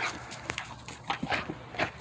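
German shepherd crunching dry kibble: a string of soft, irregular crunches.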